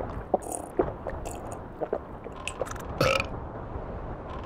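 Scattered crisp clicks of a long-haired hamster chewing and nibbling food, then one short burp about three seconds in.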